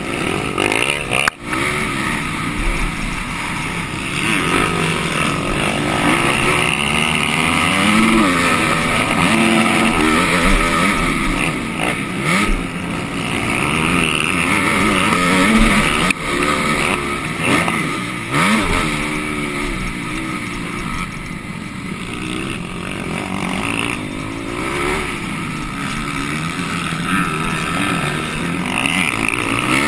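Motocross bike engine, heard from the rider's helmet camera, revving up and dropping back over and over as the rider accelerates and shuts off along the track. A single sharp knock comes about a second in.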